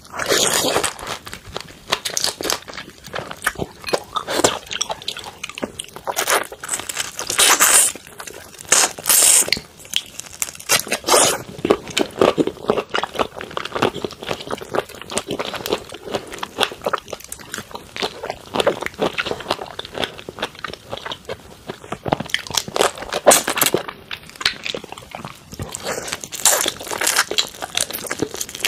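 Close-up crunching and chewing of large cooked prawns, their shells cracking as they are pulled apart by hand and bitten, in a string of irregular crackles.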